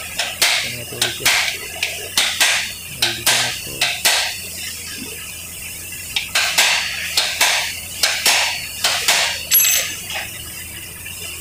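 Hammer striking a steel punch set on the centre nut of a Honda Activa 4G scooter's clutch assembly, metal on metal, about two to three blows a second. The nut is being tightened by hand so it will not work loose. The blows pause for about two seconds midway and stop near the end.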